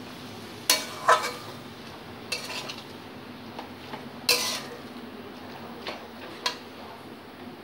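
A metal spatula scraping and clattering against a metal kadai as a thick mash of banana flower and potatoes is stir-fried, in about five separate strokes, the loudest about a second in and just past four seconds in.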